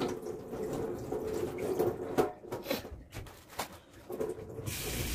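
Water running from a kitchen tap into the sink while lettuce leaves are rinsed. The flow drops away for a couple of seconds in the middle, with a few light knocks, and returns near the end.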